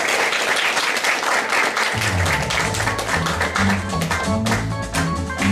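Audience applause, then music starts about two seconds in, with a steady bass line and short melody notes over it.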